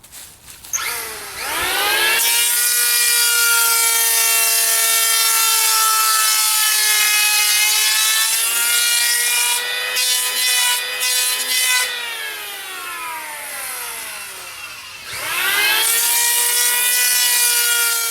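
Electric hand planer planing the edge of an EPS foam surfboard blank: its motor spins up to a high whine, runs steadily, winds down with falling pitch about twelve seconds in, then spins up again near the end.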